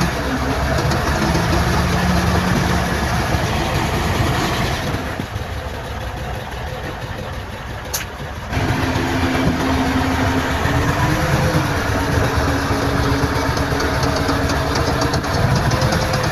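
Diesel engines of heavy earthmoving machines running steadily. The noise drops for a few seconds in the middle, with a sharp click, then comes back suddenly with a steady engine whine.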